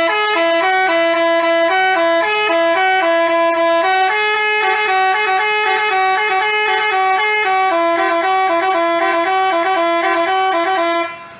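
Bus telolet horn of the basuri type playing a tune: a rapid, unbroken run of stepping horn notes that stops about eleven seconds in.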